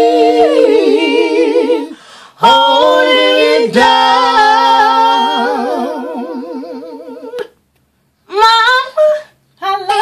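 Women singing a cappella in harmony, holding long notes with vibrato that fade out about seven and a half seconds in. A short vocal sound follows near the end.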